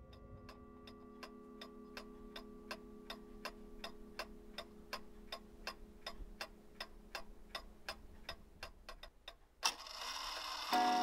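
Clock ticking steadily, about four ticks a second, over a faint low hum of several steady tones. Near the end a sharp click is followed by a louder ringing with several pitched tones as the alarm clock's bells go off.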